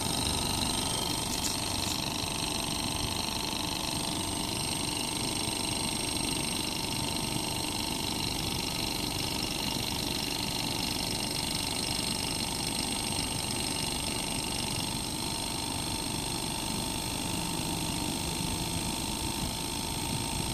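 Panasonic heat pump's compressor running with a steady mechanical whirr and several high, steady whines over it. The owner takes the compressor to be defective.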